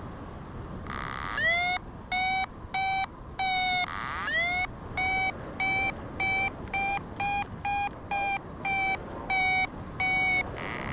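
Paraglider variometer beeping: a train of short pitched beeps, each starting with a quick upward swoop, about two a second and quickening a little, the climb tone that signals the glider is rising in lift. Wind noise runs low underneath.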